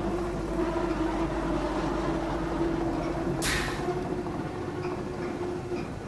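Feed mill machinery running with a steady hum, and a short, sharp hiss about three and a half seconds in.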